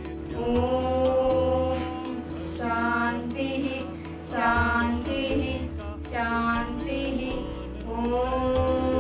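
Two children, a girl and a boy, singing a Hindu prayer chant together in long held phrases over a steady sustained accompaniment.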